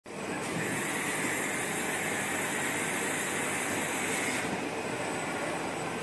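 Roll-to-roll screen printing machine running, a steady mechanical hum with a hiss over it. The sound's character shifts briefly about four and a half seconds in.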